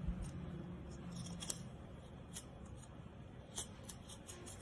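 Knife blade scraping around the rim of set palm jaggery in a coconut-shell mould, scoring it loose from the shell: faint, irregular short scrapes.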